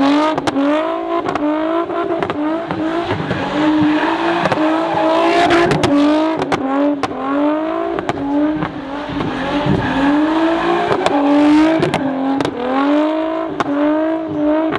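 A car spinning donuts on pavement. The engine revs climb and drop over and over, roughly every half second, with the tyres squealing in the burnout and sharp cracks scattered throughout.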